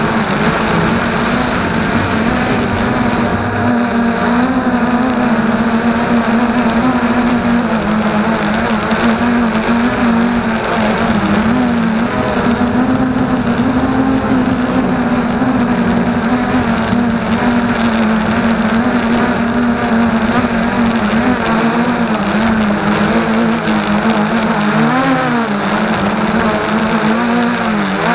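FreeX Skyview quadcopter's motors and propellers buzzing steadily in flight, heard close up from the onboard camera, the pitch wavering up and down with the throttle. Near the end the pitch dips and rises quickly twice.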